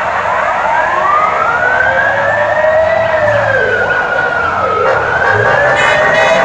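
Emergency vehicle siren wailing, its pitch rising and falling slowly, with a second, lower wail alongside it, over low street traffic noise.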